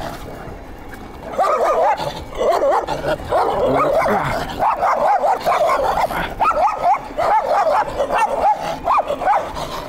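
Several dogs barking aggressively, a fast run of overlapping barks that starts about a second and a half in and keeps on without a break.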